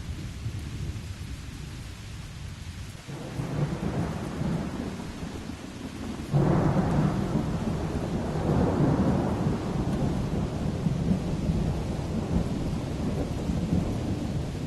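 Steady rain with rolling thunder: a low rumble builds about three seconds in, then a sudden, louder crack of thunder about six seconds in rumbles on, swelling and fading over the rest of the stretch.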